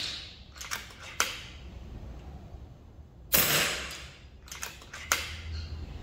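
FX Crown .22 PCP air rifle firing one shot a little past the middle, a sharp report that dies away over about half a second. A few sharp clicks come about a second in and again near the end, as the side lever is worked to load the next pellet.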